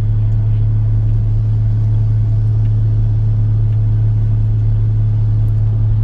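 Steady low drone of a car being driven, heard from inside the cabin: engine and road noise.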